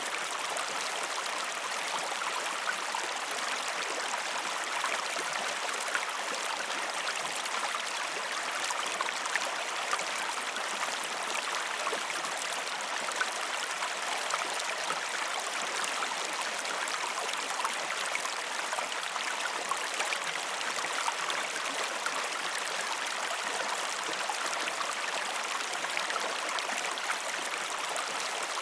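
River water rushing and splashing steadily, with fine spattering detail.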